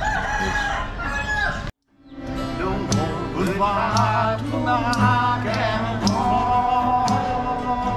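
Acoustic guitar strummed with men singing along in a group, starting right after a brief gap of silence about two seconds in. Before the gap a rooster crows.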